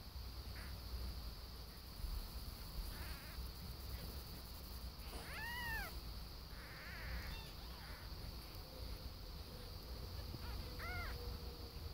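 Newborn kittens mewing: several thin, high-pitched mews that rise and fall, with the clearest about halfway and a couple more near the end.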